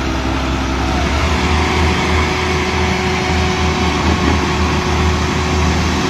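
Heavy diesel machinery running hard under load, around a log-laden Mack truck stuck in deep mud: a loud, uneven low rumble.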